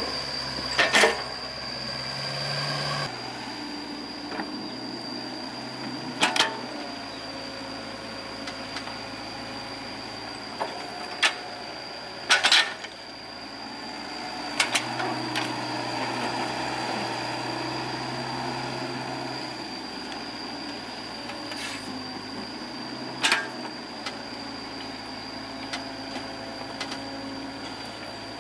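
Mini excavator's diesel engine running steadily, swelling and easing as the hydraulics dig and swing, with about six sharp clunks of the steel bucket against the truck's bed and sides. A steady high whine runs underneath.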